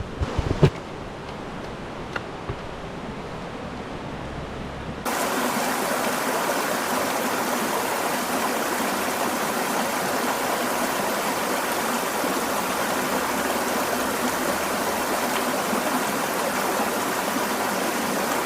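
Rushing mountain stream water, a steady hiss. About five seconds in it jumps suddenly to a much louder, fuller rush that holds steady, as if the sound cuts to a spot right beside the fast water.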